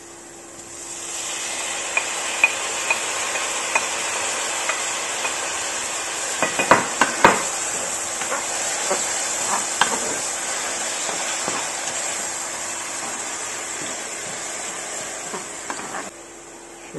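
Diced tomatoes frying in hot oil and butter with chopped green peppers: a steady sizzle that builds about a second in as the tomatoes land in the pan. A wooden spoon knocks and scrapes against the pan a few times as the mix is stirred, and the sizzle stops abruptly near the end.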